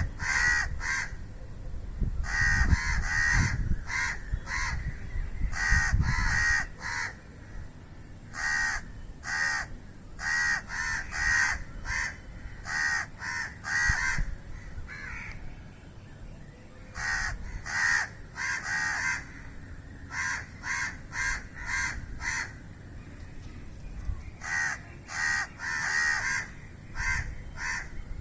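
Crows cawing: short, harsh caws in quick bouts of three to six, with brief pauses between bouts.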